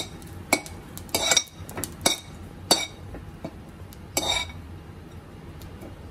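Steel spoon scraping and clinking against a stainless steel pan while stirring dry grated coconut roasting in a little oil. About six strokes in the first four and a half seconds, then quieter.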